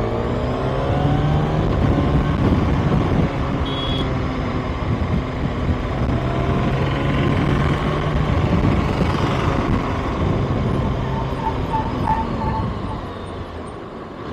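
Kawasaki ZX-6R's inline-four engine running steadily at road speed, with wind rushing past.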